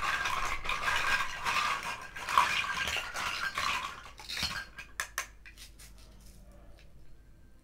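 Hard plastic toy food pieces clattering and rattling against each other as hands rummage through a pile of them. The clatter is dense for about the first four seconds, then gives way to a few separate clicks and quieter handling.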